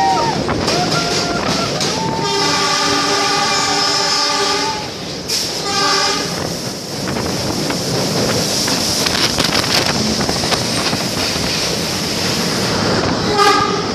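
A moving passenger train's wheels and carriage rumble steadily on the rails. Its horn sounds a long blast about two seconds in, a short blast around six seconds, and another short blast near the end.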